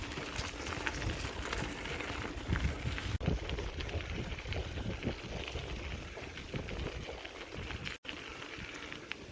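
Wind buffeting the microphone in gusty low rumbles over a constant crackly hiss of bicycle tyres rolling on a gravel trail. The sound breaks off abruptly about three seconds in and again near the end.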